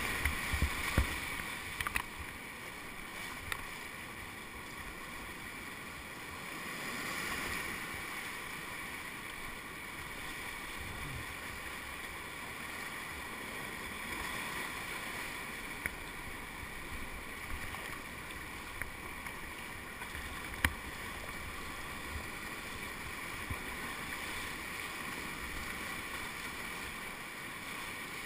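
Whitewater rapids rushing steadily around a kayak, with a few short sharp knocks here and there, the loudest about twenty seconds in.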